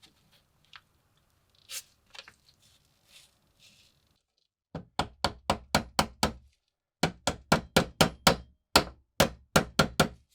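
Faint handling clicks, then rapid hammer taps, about four a second, in two runs with a short pause between them.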